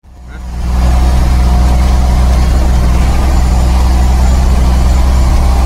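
Loaded log truck's diesel engine running steadily, a loud low drone heard from inside the cab, fading in over the first second.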